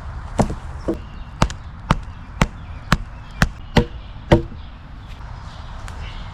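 An axe chopping into a log, about nine strokes at roughly two a second, stopping a little after four seconds, typical of cutting a notch.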